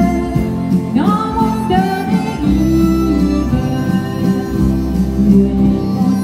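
Live country music: a woman singing, backed by a strummed acoustic guitar and a harmonica.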